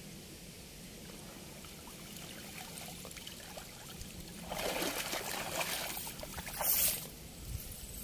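Water pouring and dripping off a wet cast net as it is lifted out of a river, heaviest for a couple of seconds past the middle.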